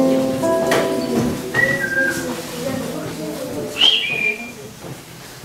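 Held musical notes end about half a second in with a sharp knock. Then come a few short, high whistled notes, one stepping down in pitch and a louder one sliding down near the end.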